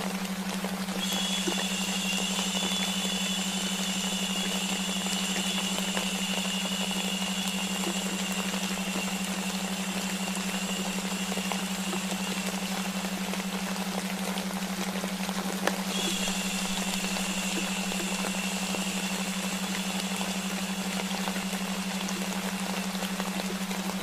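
Steady rain-like white noise over a constant low hum-like tone, the delta-wave layer of a baby sleep mix. A long "shhh" hush starts about a second in, fades out a little after the middle, and comes back in near the end.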